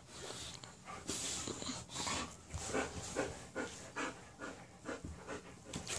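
A dog panting quickly, short breaths repeating about two to three times a second.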